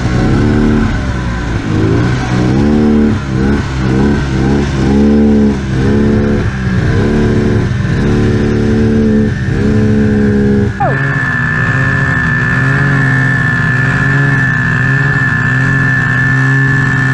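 Two-stroke snowmobile engine revved in short surges, about ten of them, each rising and falling in pitch. About eleven seconds in it switches to a steady run with a constant high whine over it.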